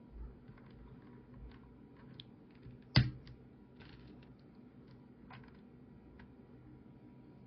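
Aula F75 mechanical keyboard with Akko Creamy Yellow V3 Pro linear switches being typed on: scattered, quiet keystrokes, with one much louder knock about three seconds in.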